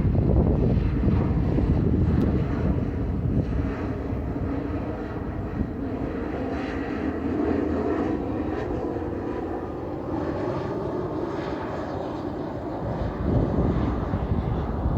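Embraer 190 jet's twin turbofan engines running at high power with a deep rumble and a steady hum. Loudest in the first few seconds, then easing slightly, with a brief swell near the end.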